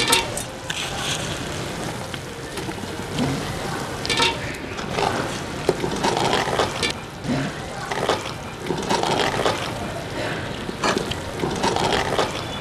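Thick maize and palm-nut stew (sangha) bubbling in an aluminium pot, then stirred with a metal spoon that scrapes and clicks against the pot several times.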